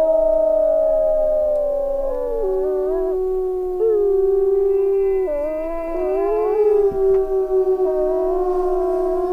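Several wolves howling together in a chorus: long, overlapping howls at different pitches that hold steady and then slide or step to new notes.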